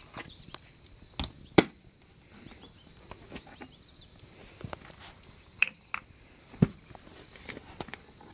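A handful of sharp clicks and knocks as a plastic bar-oil jug and the chainsaw's oil filler cap are handled, the loudest about one and a half seconds in, over a steady high chirring of crickets.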